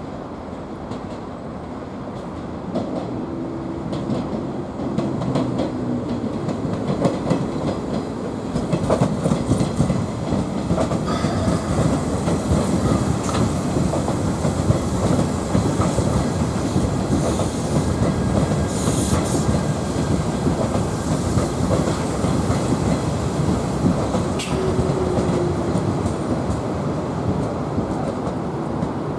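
Nishitetsu 8000 series six-car electric train running into a station and slowing, its wheels clattering over the rail joints, louder as the cars come alongside. A brief high squeal comes about two-thirds of the way through.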